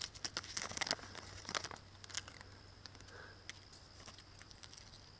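Bark being peeled by hand off a dead black birch: a papery crackling and tearing, dense in the first two seconds, then thinning to scattered faint crackles.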